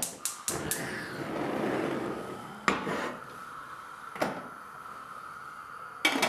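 Stainless steel pressure cooker pot being handled on a gas hob's metal grate: a quick run of sharp clicks at the start, a couple of seconds of rattling and scraping, then single metallic knocks spaced a second or two apart.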